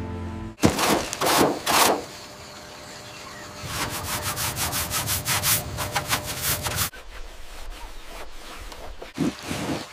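A hand scrubbing grime off a corroded metal plate on an aircraft fuselage: three loud sweeping strokes about a second in, then a quick run of short rubbing strokes, about five a second, going quieter near the end.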